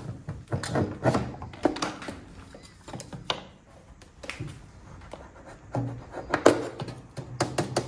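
Metal hand tool scraping along and knocking against spring bronze weather stripping and the wooden window jamb, scoring the bronze to draw it into a flange. Irregular clicks, taps and short scrapes, with the sharpest knock about six and a half seconds in.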